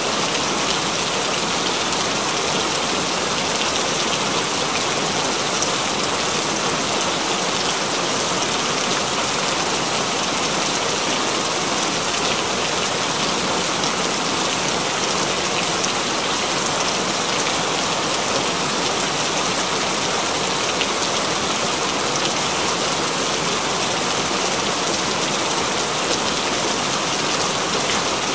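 Steady rain falling, an even, dense hiss with no let-up.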